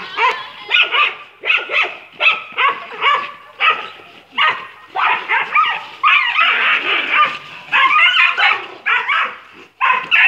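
Dog barking over and over, about two barks a second.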